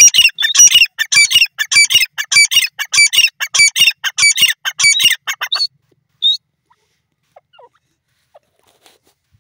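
Grey francolin calling: a long series of loud, harsh notes repeated about every half second, stopping about five and a half seconds in, with one short note after.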